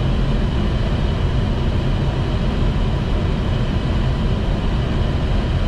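Steady rushing noise of airflow and engines on the flight deck of a Boeing 737 MAX on short final approach, with a faint steady high tone above it.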